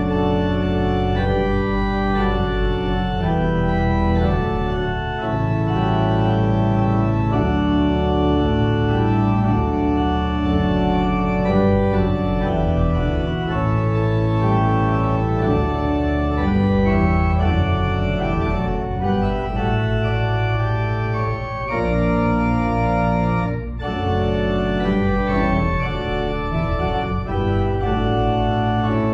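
Organ playing a closing postlude: full held chords that change every second or two over a moving bass line, with no singing.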